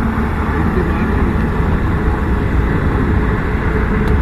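Steady road and wind noise of a car driving along, heard from inside the cabin: a continuous low rumble with a hiss above it.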